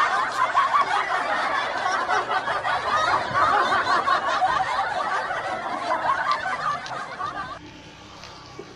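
Canned laughter sound effect that cuts off suddenly about seven and a half seconds in.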